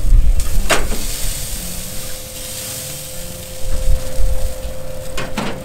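Whole chickens sizzling on a charcoal grill as they are turned with a metal spatula, with two brief scrapes, one about a second in and one near the end, over a low rumble.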